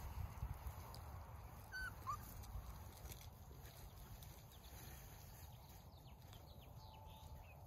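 Faint low rumble with two brief high squeaks about two seconds in and soft scattered rustles later on, from puppies playing on dry grass.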